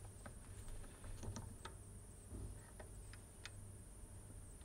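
A few faint, scattered small metal clicks and taps from the tailstock of a Wolf Jahn 8 mm Geneva-style watchmaker's lathe being handled and clamped tight against the bed.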